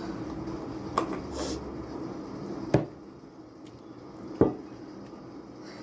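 Cutlery knocking against a bowl during a meal: three short separate knocks, about a second, two and three-quarter seconds and four and a half seconds in, over a faint steady hum.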